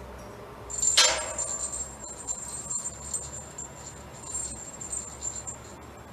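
Small jingle bells on a string cat toy jangling as a kitten bats at them: a sharp jangle about a second in, then high tinkling that rings on and off for several seconds.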